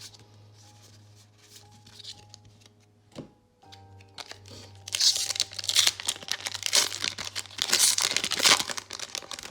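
Foil booster pack wrapper crinkling and tearing open, loud and crackly from about halfway through, over soft background music.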